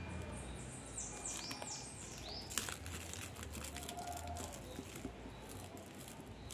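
Clear plastic grafting tape crinkling and crackling as it is stretched and wound around a desert rose graft. About a second in there is a quick run of high, falling chirps.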